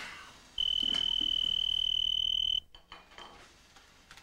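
Telephone ringing: one electronic ring of about two seconds, a high warbling trill that starts about half a second in and cuts off suddenly.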